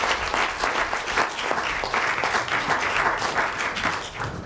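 Audience applauding, steady clapping that fades out near the end.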